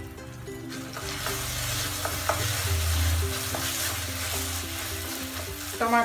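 Softened chopped tomatoes sizzling in oil in a steel kadhai, stirred with a wooden spatula that scrapes and taps against the pan. The sizzle builds up about a second in.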